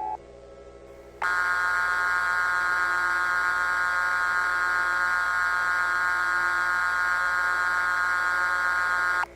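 Harsh, buzzing emergency alert alarm tone from a mock Emergency Alert System broadcast. It comes in abruptly about a second in, holds steady and loud for about eight seconds, then cuts off suddenly.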